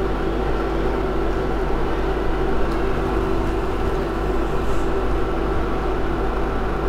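Steady mechanical hum: a low drone with a few steady tones above it, unchanging throughout.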